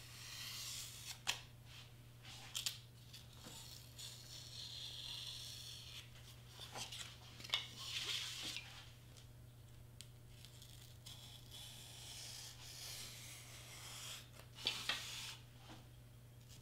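Pen scratching across stiff black cardstock while tracing an outline, in faint stretches, with a few sharp clicks as the sheet is moved and turned on the cutting mat.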